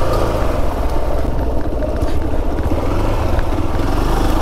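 Motorcycle engine running steadily under load, a dense low rumble.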